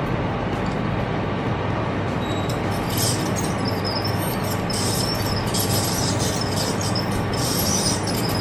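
Ultrasonic endodontic tip (Eighteeth Ultra X with a NiTi tip) running in the irrigant inside the tooth's pulp chamber, activating the irrigant. A high-pitched squealing whine starts about three seconds in and comes and goes over a steady rushing background noise.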